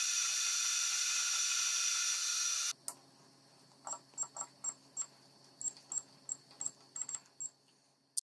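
Metal lathe turning a metal tube, the tool cutting with a steady hiss and high ringing tones, which stops abruptly about two and a half seconds in. After it come about a dozen quick, sharp high blips as keys are pressed on the lathe's digital readout keypad.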